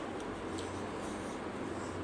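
A person eating: faint chewing and wet mouth clicks, a few short ticks, over a steady background hum.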